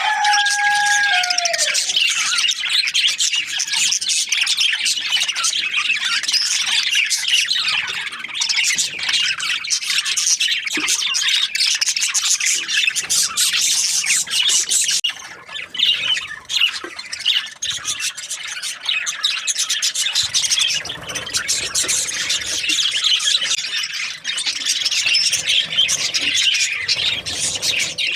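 A flock of budgerigars chattering and chirping, many birds calling over each other in a continuous high warble with squawks. A lower held call slides down and fades out in the first two seconds.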